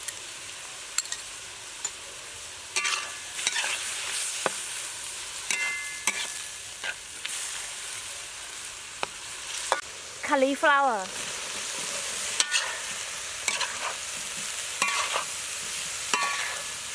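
Beef and shrimp sizzling in a hot wok while a spatula stirs them, with repeated short knocks and scrapes of the spatula against the pan. Cauliflower florets go in during the second half and keep sizzling.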